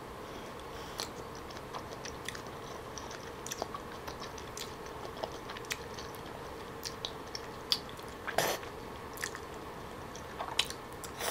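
Close-up eating sounds of soy-marinated salmon strips being slurped and chewed: wet mouth clicks and lip smacks, with one louder slurp about eight seconds in.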